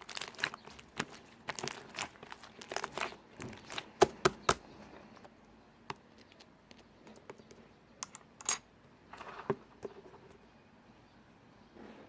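Slime being squished and stretched by hand, giving irregular crackling and clicking with sharp air-bubble pops. There is a quick run of three loud pops about four seconds in, and the sounds grow sparser afterwards.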